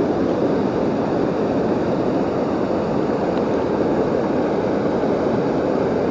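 Steady rush of water falling over a river waterfall, an even, deep rushing noise that does not change.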